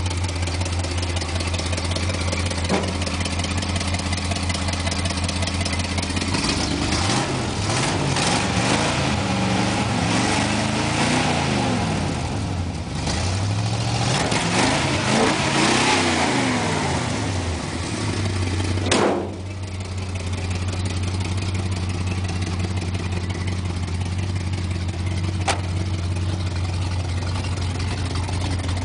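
1978 Ford F-150 4x4 engine idling, then revved up and down several times with the hood open before dropping back to a steady idle. A single sharp crack, the loudest moment, comes as the revs fall, and a faint click follows later.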